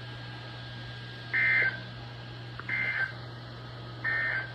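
Emergency Alert System end-of-message signal: three short bursts of digital SAME data tones, heard as harsh bleeps about a second and a half apart. They mark the end of the severe thunderstorm warning. A low steady hum runs underneath.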